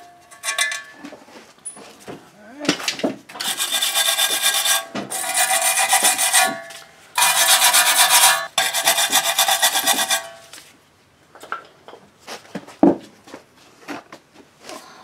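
Hand scrubbing and scraping at the steel face of a rear wheel hub, in four long back-to-back bouts of rubbing with a metallic ring. Scattered small clicks around it and one sharp knock near the end.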